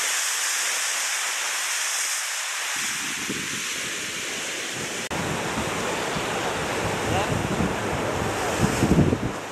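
Sea surf washing against a rocky shore, with wind buffeting the microphone in low rumbles, heavier near the end.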